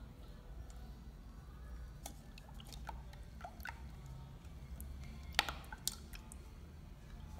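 A stick of cheese being dipped and turned in beaten egg in a stainless steel pot: faint wet squishing and dripping, with scattered light clicks and two sharper taps a little past halfway.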